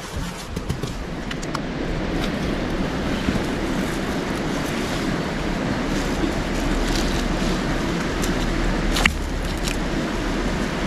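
Steady rush of a river, with a few sharp clicks of stones knocking together as they are handled, the loudest about nine seconds in.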